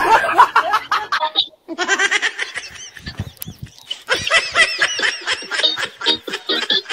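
Loud, high-pitched laughter in rapid ha-ha pulses, breaking off briefly about a second and a half in and dipping for a moment around the middle.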